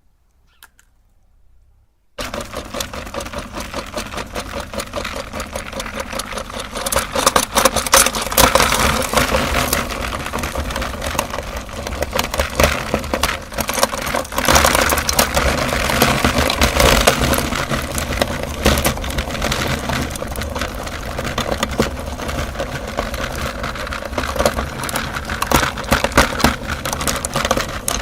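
Electric meat grinder switched on about two seconds in and running steadily, its motor humming under a constant crackle of crunching as it grinds chocolate umbrella candies.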